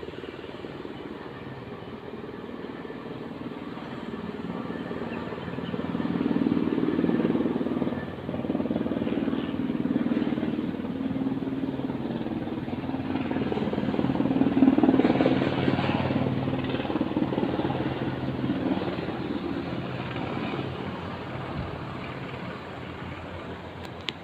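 Helicopter in flight: rotor and engine noise with a steady low drone, growing louder to a peak about two-thirds of the way through and then slowly fading.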